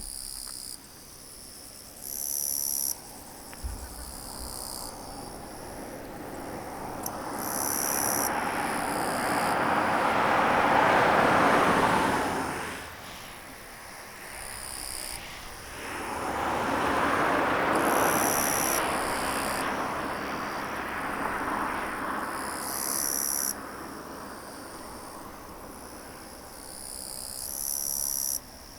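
Insects, crickets or similar, chirring in high-pitched bursts that start and stop every few seconds. Two long swells of rushing noise build and fade beneath them, the first peaking about eleven seconds in and the second about eighteen seconds in.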